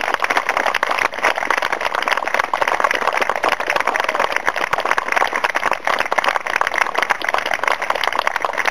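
Wedding guests applauding, a dense steady patter of many hands clapping at once.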